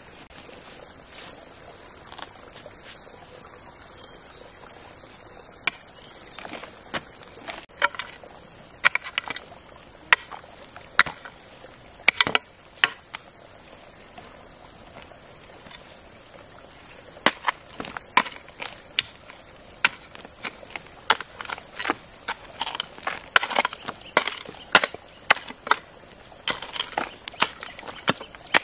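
Steady high-pitched insect buzz, with irregular sharp clicks and knocks starting about six seconds in and coming thickly toward the end.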